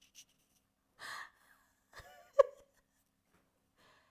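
A person's sharp breath or gasp about a second in, then a brief vocal sound ending in a sharp click about halfway through, the loudest moment; otherwise quiet.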